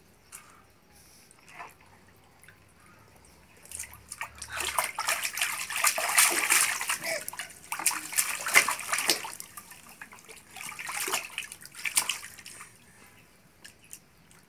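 A toddler's hands slapping and splashing water in a large plastic tub: a few single splashes at first, then a run of quick, lively splashing from about four seconds in that eases off near the end.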